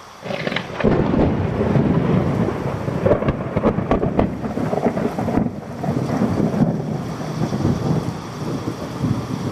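Thunder rumbling over steady rain, swelling up over the first second, with a few sharp cracks a few seconds in.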